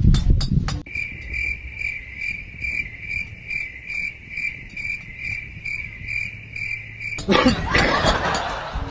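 A cricket chirping steadily, about two to three chirps a second, starting and stopping abruptly. Near the end a loud rushing noise takes over.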